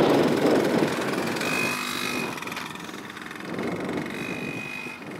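Mini dirt bike engine running as the bike rides past close by, loudest in the first second or so, then fading as it rides away.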